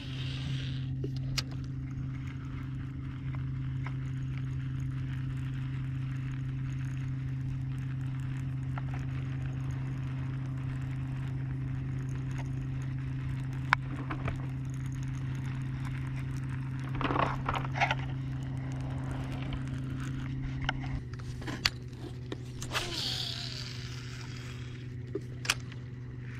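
Boat motor running steadily at trolling speed, a constant hum that drops slightly in pitch about two-thirds of the way through. A sharp knock about halfway and a couple of short noisy rushes sound over it.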